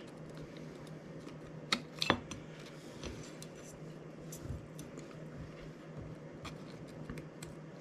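Small clicks and taps of an M.2-to-PCIe adapter card and its metal heatsink being handled and fitted together on a rubber bench mat, with two sharper clicks about two seconds in. A faint steady low hum runs underneath.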